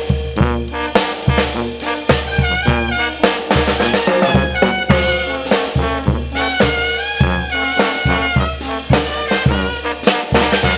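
Mexican regional brass band (banda) playing: trumpets and other brass carry the melody over a steady, regular drum beat.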